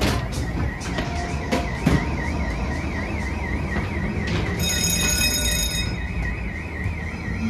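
Ghost train car rumbling along its track, knocking as it pushes through swing doors at the start, under a warbling electronic alarm tone from the ride's effects that wobbles three or four times a second. A brief high electronic buzz comes in about halfway through.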